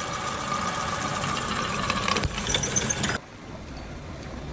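Lathe machine running with a steady whine over a noisy mechanical hum and some rattling clicks; about three seconds in the sound drops sharply to a quieter low hum.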